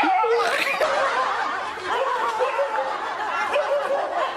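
Several people laughing and snickering together, with many overlapping voices.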